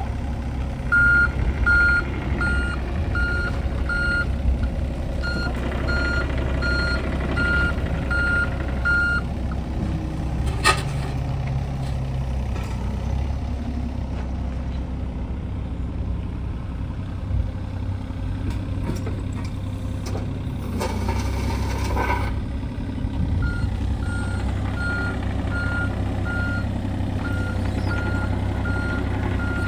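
John Deere 35G mini excavator's 23 hp diesel engine running steadily with hydraulics working, and its travel alarm beeping about one and a half times a second through roughly the first third and again near the end, while the machine tracks. A single sharp click about a third of the way in.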